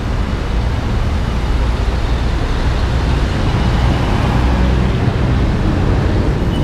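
Steady road traffic noise from cars and buses running along a busy multi-lane city road, with a heavy low rumble.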